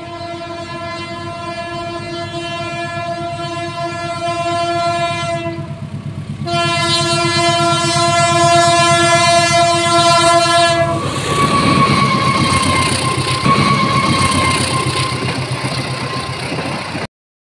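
Diesel locomotive horn sounding two long, steady blasts, the second louder as the train nears. Then the passing passenger train: engine rumble and wheel clatter on the rails, cutting off suddenly near the end.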